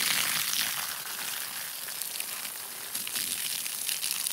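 Garden hose spraying water onto a gardenia bush and the soil at its base, a steady hiss of spray and splashing.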